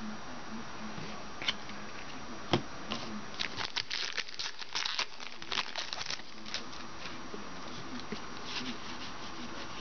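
Football trading cards being handled and flipped through by hand: scattered light clicks, rustles and crinkles, busiest in the middle.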